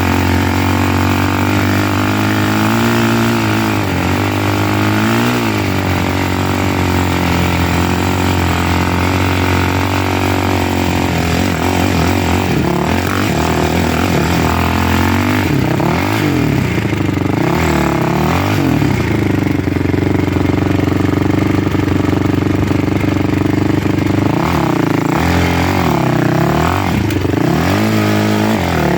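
Motor vehicle engine running under way. It holds a steady pitch at first, then from about halfway through it repeatedly revs up and eases off as the vehicle speeds up and slows.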